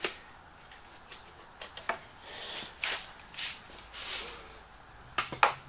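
Irwin Quick-Grip one-handed bar clamps being set and tightened around the edges of a glued-up plywood panel: scattered clicks and knocks of the clamps, with a few short rustles between them.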